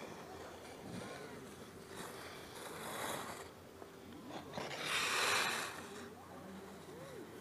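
Skis sliding on packed snow, with two louder scraping swells as the skier turns, the second the loudest.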